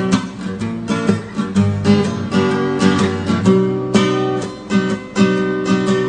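Music: a strummed guitar playing a rhythmic chord passage without singing.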